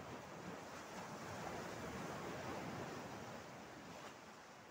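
Small sea waves washing ashore: a soft rush of surf that swells and then fades away near the end.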